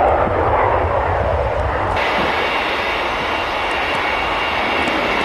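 Jet airliner engines running, a steady rushing noise. About two seconds in the sound changes abruptly: the deep rumble drops away and a higher hiss takes over.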